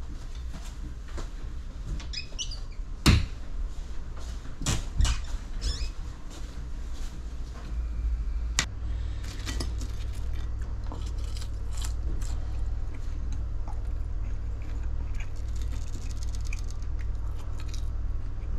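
Scattered knocks and clicks as tableware and a chair are handled and a metal fork taps and scrapes a plate of fries, louder in the first few seconds. A steady low hum runs underneath and grows stronger partway through.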